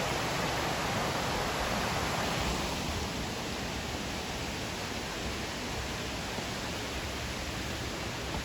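Waterfall: a steady rush of falling water that eases slightly after about two and a half seconds.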